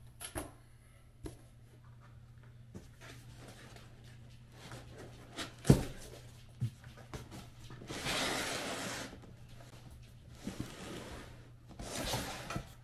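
Cardboard shipping box and its packing being handled and pulled apart: scattered taps and scrapes, one sharp knock a little before the middle, then several stretches of rustling and scraping in the second half.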